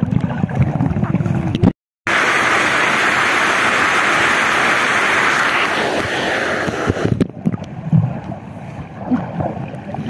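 Waterfall rushing and water splashing, heard from a camera dipping in and out of the plunge pool. While the camera is above the surface the waterfall gives a steady, bright rush. While it is underwater, at the start and from about seven seconds in, the sound turns muffled, with low sloshing and gurgling. The sound cuts out briefly about two seconds in.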